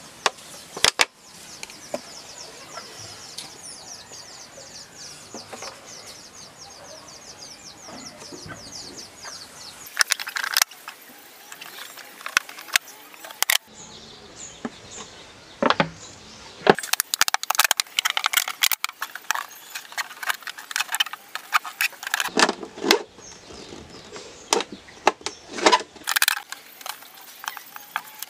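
Thin clear plastic bottle being handled and cut with a blade: irregular crackles, clicks and crinkles of the plastic, coming thick from about ten seconds in. Before that a high, fast-pulsing trill carries on in the background.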